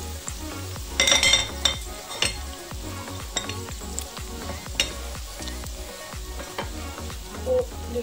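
Sliced mushrooms and chopped red onion sizzling in hot oil in a frying pan while being stirred, with scattered sharp clicks of a utensil against the pan; the loudest clatter and sizzle comes about a second in.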